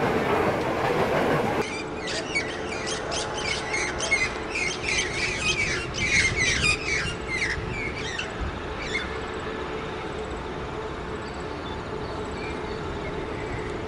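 Freight train's hopper wagons rolling past on the rails, cut off abruptly about a second and a half in. Then a run of short bird chirps for several seconds, over a faint steady hum from a diesel locomotive approaching in the distance.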